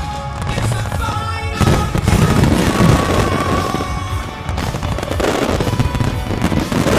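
A fireworks display set to music: music alone at first, then from about a second and a half in, a dense volley of shells and comets launching and bursting, rapid bangs and crackle over the music.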